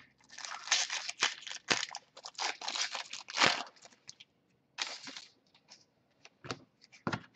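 A trading card pack's wrapper being torn open by hand, crinkling and crackling in a run of rustles over the first few seconds, then a few short flicks as the cards are handled near the end.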